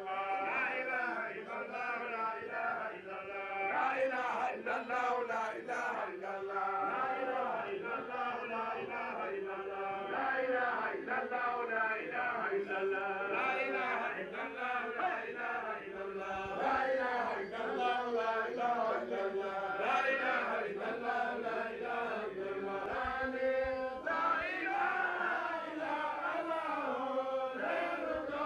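Men's voices chanting an Islamic devotional chant in one continuous melodic line, without a break.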